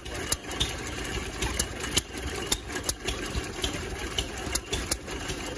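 Antique hit-and-miss stationary engine running a water pump: sharp pops at uneven spacing, roughly two a second, over a steady low running sound.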